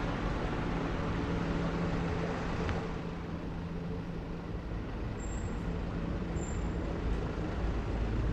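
Steady city road traffic noise from passing vehicles, with a vehicle engine's steady hum close by that fades after about three seconds. Two faint, brief high chirps come past the middle.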